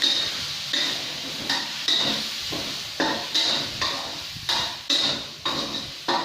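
Metal spatula scraping and clinking against a pan while stir-frying chicken with holy basil, about two strokes a second, over a soft sizzle of the frying food.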